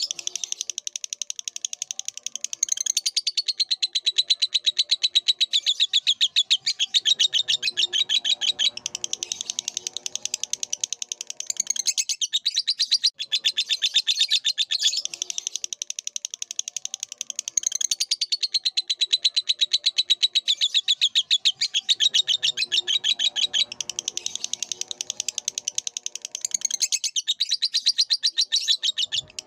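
Lovebird singing a long, unbroken chattering song of very rapid, high chirps, with a brief pause about every fifteen seconds.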